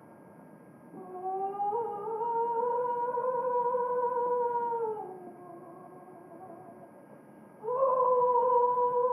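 Slow music of long, wordless held notes that slide into pitch. One note glides up about a second in and holds, slides down and fades about halfway through, and a louder second note comes in near the end and holds.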